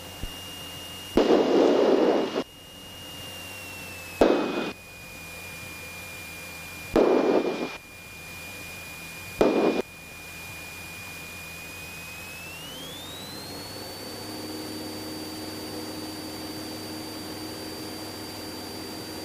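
Cockpit audio of a Cessna 172SP taking off and climbing, as heard through the intercom: a steady high whine glides up in pitch about twelve seconds in, with a low hum beneath. Four short, loud bursts of noise break in during the first ten seconds.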